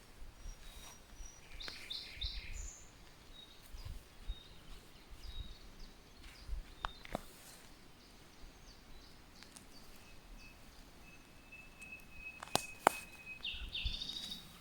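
Songbirds chirping and calling in woodland, with short high notes scattered throughout and a long steady whistled note past the middle. Two sharp clicks near the end are the loudest sounds.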